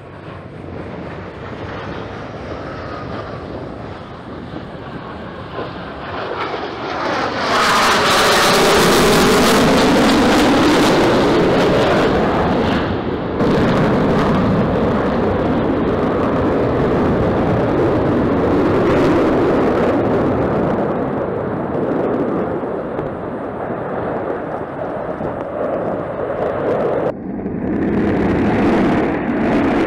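Blue Angels F/A-18 Super Hornet jet noise as the jets fly past. A loud rushing roar builds and peaks with a sweeping whoosh about eight seconds in. The sound breaks off abruptly twice, near the middle and near the end, and another loud jet roar starts straight away each time.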